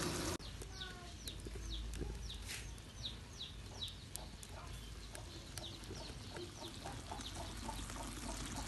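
A wok's frying sizzle cuts off abruptly just after the start. It gives way to quieter chickens: high, short, falling chirps repeating, then, from about the middle, quick clucks about three a second, with a few faint clicks.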